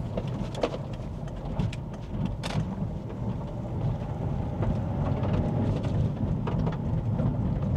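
A car driving on the road with a steady low tyre and road rumble, and scattered sharp clicks of small rocks picked up by sticky Goodyear Eagle F1 Supersport sports tyres.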